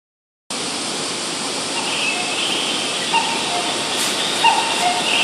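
Station platform sound beside a standing Keihan 9000-series commuter train: a steady hiss starting about half a second in, with a two-note falling chime repeating roughly every second and a half.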